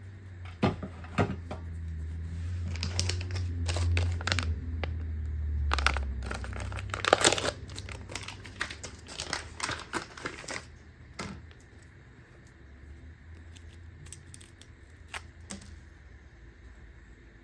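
Plastic MRE ration packaging crinkling and being torn open: a run of rustles, tears and sharp clicks, most intense midway, then dying down to occasional light handling rustles.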